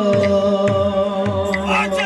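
Odia devotional kirtan music: a long held note with singing into a microphone, over low drum strokes about twice a second and the clicks of small hand cymbals.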